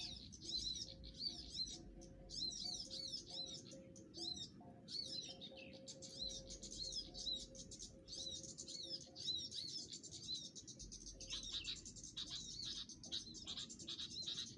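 Small songbirds chirping in dense, rapid, repeated high calls, several a second, with the chirping growing busier and more scattered in the last few seconds.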